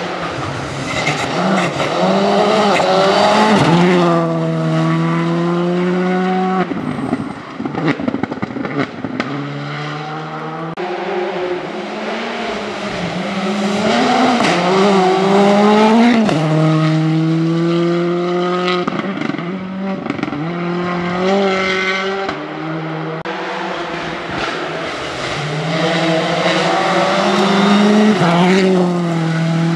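Rally car engines running hard at full throttle, pitch climbing and dropping repeatedly through gear changes as several cars pass in turn, some holding steady high revs between.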